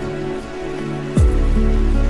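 Background music: sustained synth-like tones, with a deep bass note that drops in on a steep falling sweep about a second in and then holds.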